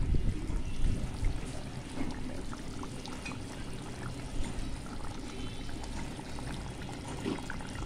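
Beef curry bubbling at a slow simmer in a metal pot, a steady wet simmering with many small pops. A spatula stirs through it in the first second or so.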